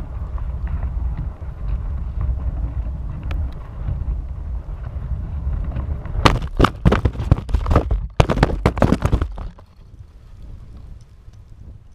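Wind buffeting the microphone of a balloon payload camera descending under its parachute. About six seconds in comes a rapid cluster of loud knocks and crashes as the payload hits the ploughed field and tumbles over the clods, stopping about three seconds later and leaving only a faint rustle.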